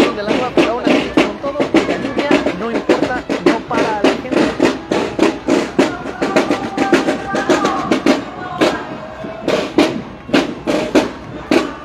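Marching snare drums of a Mexican banda de guerra (military-style drum and bugle corps) playing a steady marching cadence. In the last few seconds the strokes turn into sharper single hits, about two to three a second.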